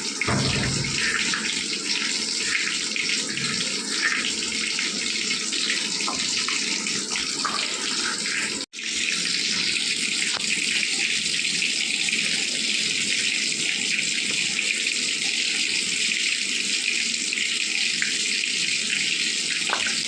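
Tap water running steadily into a kitchen sink, cutting out for a moment about nine seconds in.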